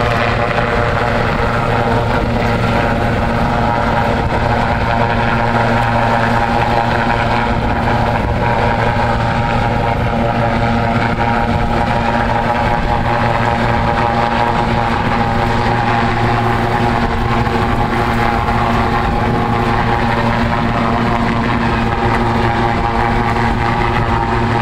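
Search-and-rescue helicopter hovering low over the sea, its rotor and turbine engines running steadily at an even pitch.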